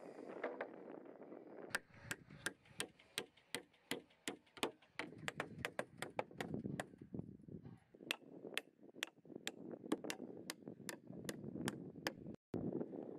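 Hand hammer driving nails into timber framing and boards: a run of sharp blows, about three a second, with a short pause midway.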